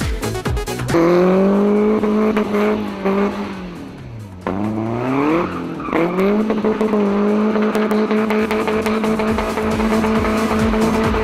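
Peugeot 206 GTI's 2.0-litre four-cylinder engine held at high revs as the car slides through tight turns, with tyre squeal. About four seconds in the revs drop away, then climb back and hold steady.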